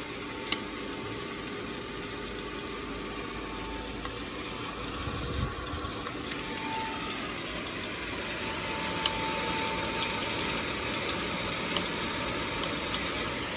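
ROEST sample coffee roaster running steadily, its fan and rotating chamber making an even whir. A few sharp isolated pops come from the beans in first crack.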